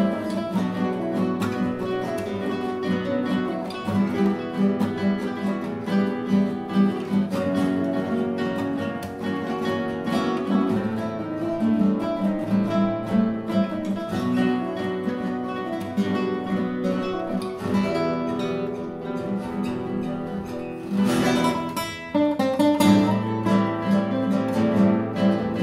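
A classical guitar ensemble of about eight nylon-string guitars plays a four-part arrangement: plucked notes over a low bass line. A loud strummed chord cuts across the texture about three-quarters of the way through.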